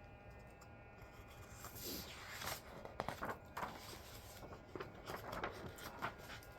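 Soft rustling and light clicks of paper being handled, as a picture book's page is turned.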